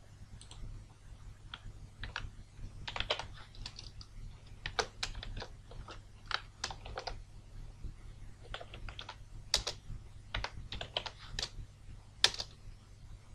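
Typing on a computer keyboard: irregular keystrokes, some in quick runs, with short pauses between.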